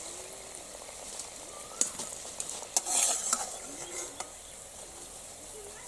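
Fried wheat-flour biscuits sizzling steadily in hot oil in a metal bowl. A perforated steel skimmer clinks and scrapes against the bowl as the browned biscuits are lifted out into a steel colander: a few sharp clinks, then a louder scrape about three seconds in.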